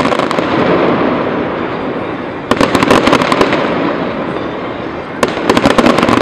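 Aerial fireworks bursting in volleys: quick clusters of sharp cracks, one about two and a half seconds in and another near the end, each followed by a rumble that slowly dies away.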